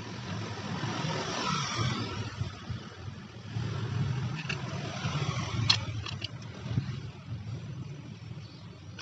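A motor vehicle engine running steadily in the background, with a few light metal clicks from parts being handled between about four and seven seconds in.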